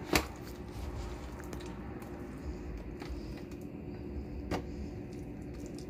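Hands rubbing butter into a raw turkey in a foil roasting pan: soft handling noise over a steady low hum, with a sharp tap just after the start and another about four and a half seconds in.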